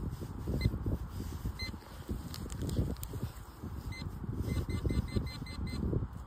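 XP ORX metal detector giving short high-pitched beeps as the coil is swept over the ground: a few spaced beeps, then a quick run of about six near the end. Low rustling noise runs underneath.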